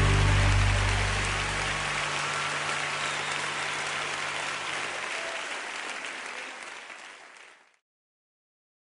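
Audience applauding as a held low chord from the band dies away in the first couple of seconds; the applause fades down and cuts off suddenly near the end.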